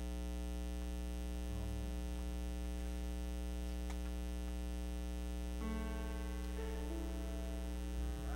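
Steady electrical mains hum with a buzz of stacked overtones. About two-thirds of the way in, faint held keyboard notes begin over it and change pitch a few times.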